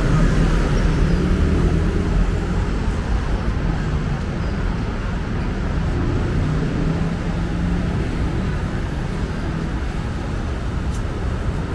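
Street traffic: a steady rumble of passing vehicle engines and tyres, with a louder engine hum swelling near the start and again about six seconds in.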